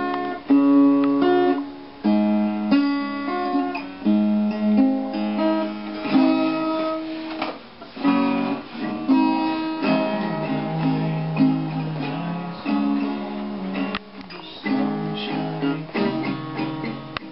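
Small-bodied steel-string acoustic guitar being played: a run of strummed chords and picked notes that ring on, changing about every second.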